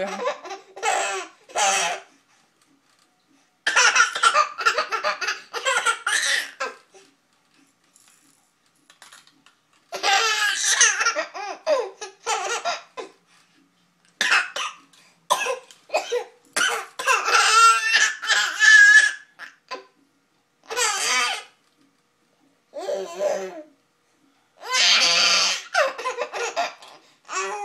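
A person laughing in repeated bursts, with silent gaps of a second or two between them.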